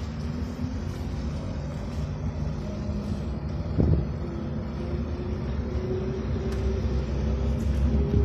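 Car running at low speed, heard from inside the cabin: a steady low rumble of engine and tyres, with a thump about four seconds in.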